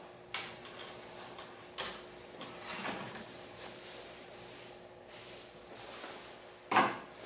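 Small clicks and knocks from hands handling wires and parts at a plastic sprinkler controller housing: three sharp clicks in the first three seconds and a louder knock near the end, over a faint steady hum.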